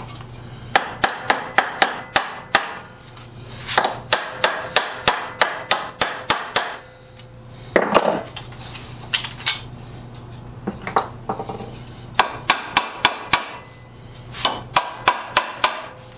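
Small hammer tapping metal soft jaws down onto the jaws of a large bench vise to seat them. The light, sharp blows come in quick runs of about four a second, with short pauses between runs.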